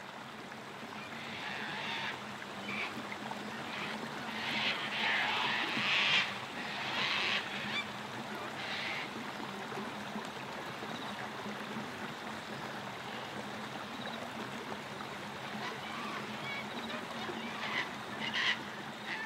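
Steady rush of river water, with scattered waterfowl calls during the first half and again near the end.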